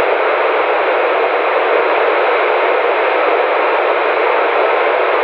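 Steady static hiss from a CRT SS 9900 CB radio's speaker, receiving on FM channel 19 with no station coming through.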